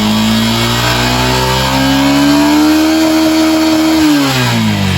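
Motorcycle engine held at raised revs, its pitch climbing slowly, then dropping about four seconds in as the throttle is let off. The engine is being revved for a stator output test, which reads a healthy 200 volts AC.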